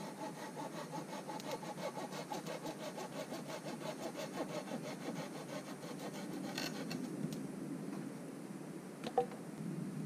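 Hand saw cutting through a wooden pole in rhythmic back-and-forth strokes, with a single sharp knock of wood near the end.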